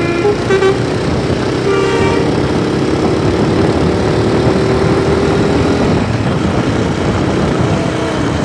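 Bus 'telolet basuri' musical air horn sounding short notes twice, then one long held note of about four seconds, over steady loud engine and road noise.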